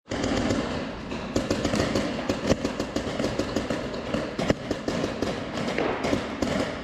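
Paintball markers firing in quick, irregular shots, with paintballs cracking against cover, echoing in a large indoor hall.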